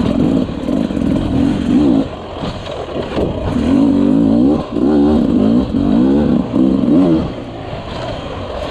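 Dirt bike engine revving up and down in repeated short throttle bursts while riding up over rough, rocky terrain.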